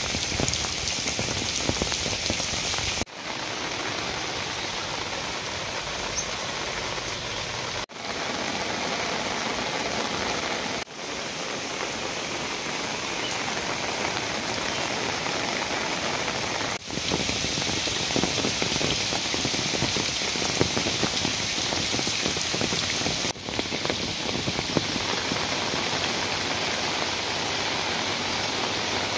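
Steady rain falling on garden foliage and wet paving, with brief drops in level at several joins between recordings.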